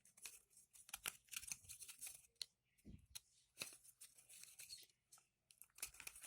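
Faint, irregular scraping and clicking as the driver circuit plate is worked out of an opened LED bulb's housing.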